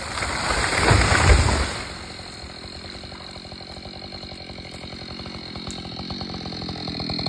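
A large felled ash tree falls and crashes onto the snowy ground about a second in, with heavy thuds. Then a chainsaw idles with a steady, rapid pulsing.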